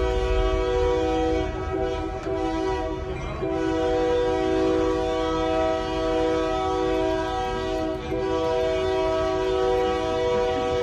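Train air horn sounding a steady chord of several notes, held almost without a break, with short dips about three and eight seconds in, over the low rumble of the train running on the track.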